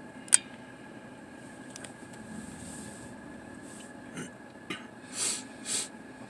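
A sharp click a moment in, a couple of small ticks, then two short breathy sniffs through the nose, over a faint steady high whine.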